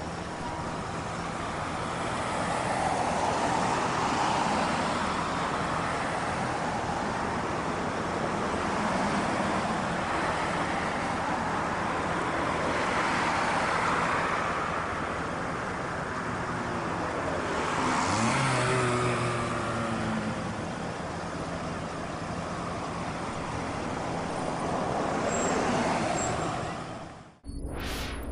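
Road traffic noise, cars passing in slow waves that swell and fade several times. Near the end it cuts off suddenly into the start of a short electronic logo sting.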